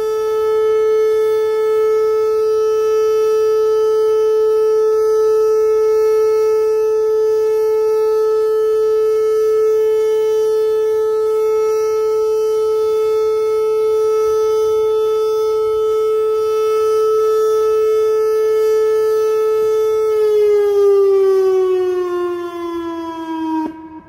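Pancake-style outdoor tornado warning siren sounding its monthly test: one loud, steady tone, then winding down with falling pitch over the last few seconds. It cuts off abruptly near the end.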